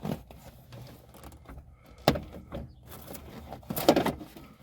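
Sharp knock about two seconds in, then a quick cluster of clunks and rattles near the end: parts and tools being handled while reassembling under the truck's dash.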